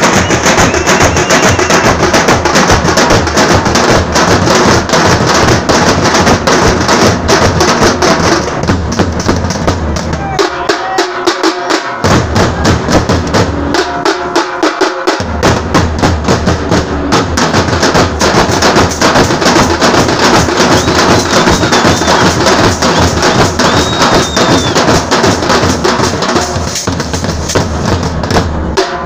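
A group of drummers beating large barrel drums together in a fast, dense rhythm. The deep beats drop out briefly twice near the middle, then come back in.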